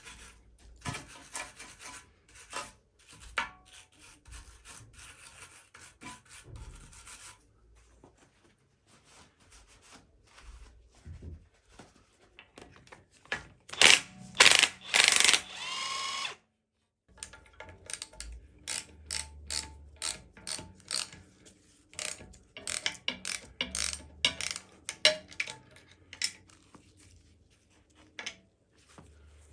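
Wire brush scrubbing metal parts of a used front suspension hub assembly. A loud, pitched screech lasting about three seconds comes around the middle. After a sudden cut, a long run of sharp clicks and knocks follows.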